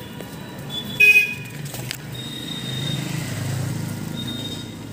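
Road traffic: a short vehicle horn toot about a second in, then a vehicle's engine rumble that swells and fades.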